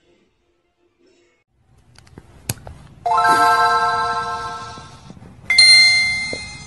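Two chime tones: a lower one about three seconds in, then a higher one about two and a half seconds later, each struck and ringing out as it fades.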